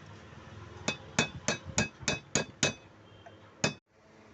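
Repeated sharp metallic taps with a short ringing note, like a small hammer striking metal. Seven come evenly at about three a second, then a single tap after a pause near the end.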